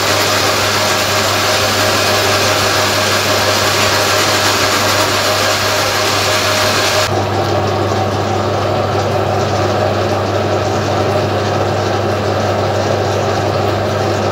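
Metal lathe running steadily with a low motor hum while turning a B18 taper cone. Its higher hiss drops away abruptly about halfway through while the hum carries on.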